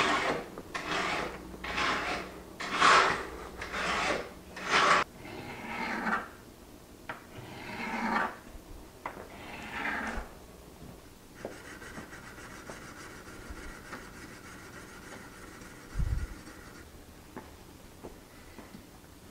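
Mill file stroked across the edge of a curved steel card scraper clamped in a vise: about six scratchy strokes a second apart, then three slower, softer strokes. After that comes a quieter steady rubbing as the scraper's face is worked on a flat sharpening stone, with one low thump near the end.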